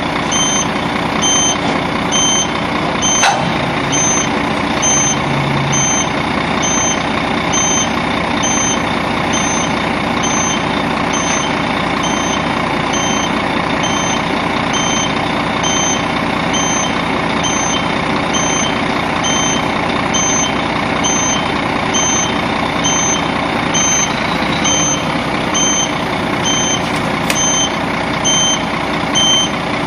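A heavy truck's diesel engine runs steadily at idle while a high-pitched warning beeper sounds about one and a half times a second. A sharp click comes about three seconds in.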